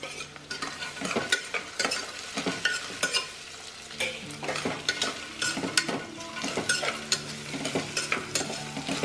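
Onions and potatoes frying in oil in an aluminium pressure cooker, sizzling steadily, with frequent scrapes and clicks of stirring against the pot as hyacinth beans are mixed in.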